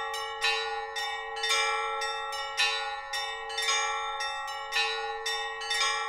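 Bells ringing in a quick, even run of strikes, about two a second with a heavier stroke roughly every second, over a lasting ring of several tones.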